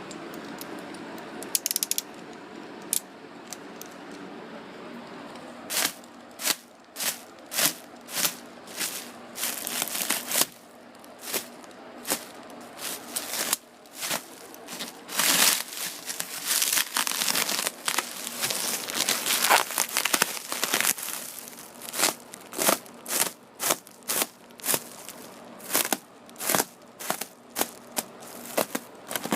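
Packaging being crinkled and pulled at by hand. Irregular, sharp rustling and crackling sets in about six seconds in and keeps going in uneven bursts.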